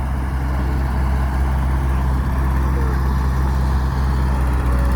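Excavator's diesel engine running steadily, a constant low drone.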